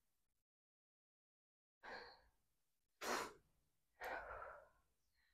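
A woman breathing hard between sets of burpees: three heavy breaths about two, three and four seconds in. The middle one is a short exhale and the loudest.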